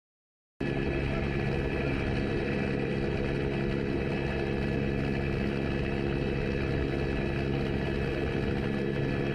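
Steady engine drone with several held tones, cutting in abruptly about half a second in and holding level throughout.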